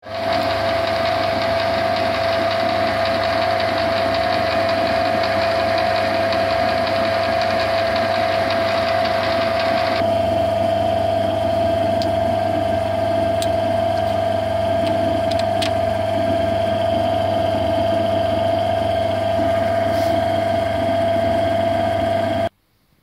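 Metal lathe running steadily with a constant whine over a low hum. The higher hiss drops away about ten seconds in, and the sound cuts off suddenly near the end.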